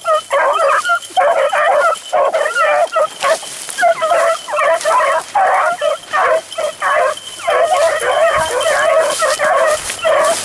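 A pack of beagles baying as they run a rabbit, several dogs' voices overlapping almost without a break: the pack giving tongue on the scent trail.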